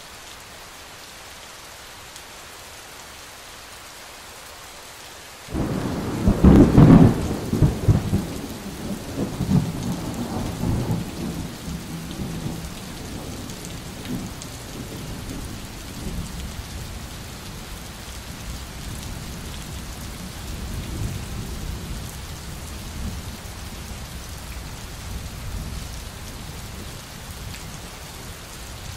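Steady rain hiss; about five and a half seconds in a thunderclap breaks and rolls on as a long low rumble that slowly dies down under the rain.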